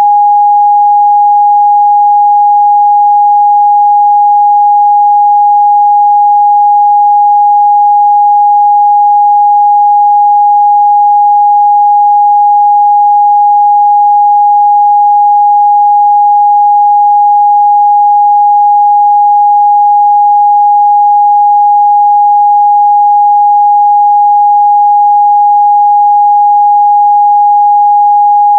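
A steady, loud 824 Hz pure sine-wave test tone, one unchanging pitch with no other sound.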